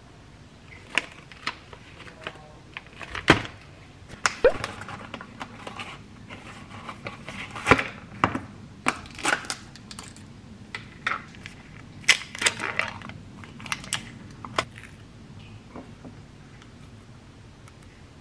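Food packaging handled on a counter: a string of sharp clicks, taps and crinkles as a milk carton and a plastic yogurt cup are handled and set down and the cup's plastic lid is pulled off. The sounds thin out toward the end.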